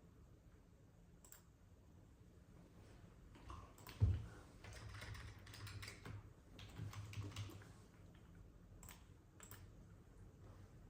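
Typing on a computer keyboard: a few single key clicks, then a quick run of keystrokes in the middle, then a couple more clicks. A dull thump about four seconds in is the loudest sound.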